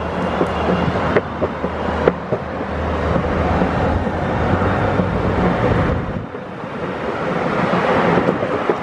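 Boosted Board 2 electric skateboard rolling along a concrete sidewalk, a steady rumble of the wheels with a low hum, mixed with wind on the microphone. A few sharp clicks come in the first couple of seconds, and the noise eases briefly about six seconds in.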